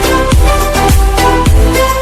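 Electronic dance-pop background music with a steady beat and sustained synth notes.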